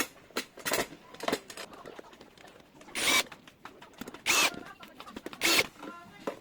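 Small metal clicks from handling a smart lock's lock body and latch, then three short whirring bursts of a power drill or electric screwdriver, each about a third of a second.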